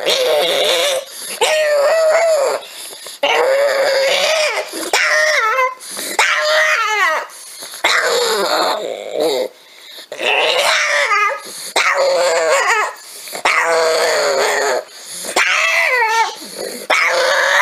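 Pug whining in a run of about ten drawn-out cries, each a second or so long, with wavering pitch and short breaks between them.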